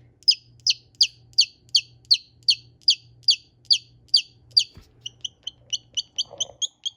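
A baby chick peeping over and over, each peep a short falling note, about three a second. Near the end the peeps become quicker and shorter.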